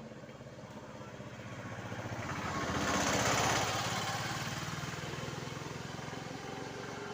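A small-engined vehicle, such as a motorbike, passing close by: its engine grows louder, is loudest about three seconds in, then fades.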